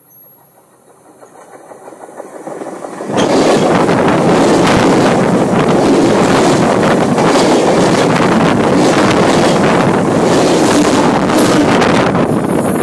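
Amtrak Surfliner passenger train approaching and then rolling directly over a microphone lying between the rails. A rumble builds for about three seconds, then the wheels and undercarriage pass overhead in a very loud, dense rush that holds steady and starts to fall away just before the end as the last car clears.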